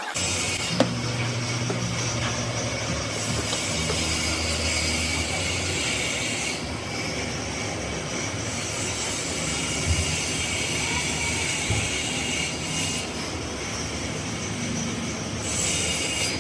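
Rotary power tool sanding or buffing a plastic car headlight lens: a steady grinding whir with a hissing, scraping edge that starts abruptly, with one sharp tick about a second in.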